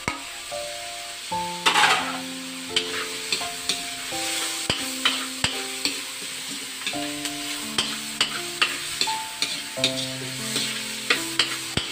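Diced ginger, onion and garlic stir-frying in a metal wok, with a metal spatula scraping and clicking against the pan. A louder burst of sizzling comes about two seconds in, as the ginger hits the hot oil. Soft background music with steady notes plays underneath.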